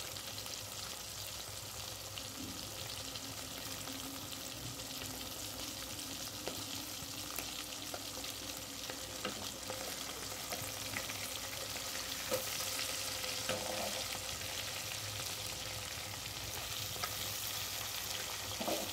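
Masala-coated lady fish pieces shallow-frying in hot oil in a kadai: a steady crackling sizzle. A few sharper clicks come through as metal tongs turn the pieces.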